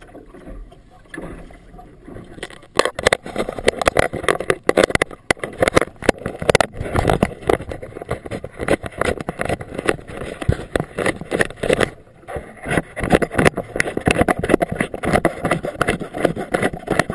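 A small outboard motorboat under way through choppy water: loud, irregular rushing and slapping of water against the hull, starting about three seconds in.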